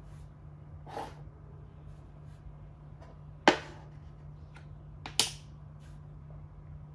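Makruk (Thai chess) pieces clacking down on the board as the red horse is moved: three short knocks, a soft one about a second in, the loudest about halfway through, and another about five seconds in, over a steady low hum.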